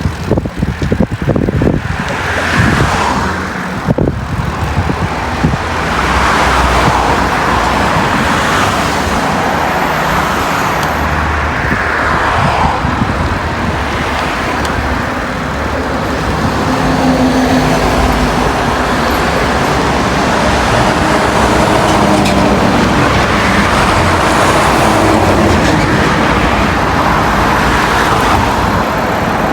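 Road traffic noise, cars passing one after another in slow swells, with wind rumbling on the microphone.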